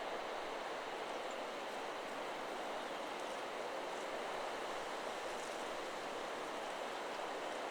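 Wind through forest trees, a steady rushing of leaves and branches, with no chime notes sounding.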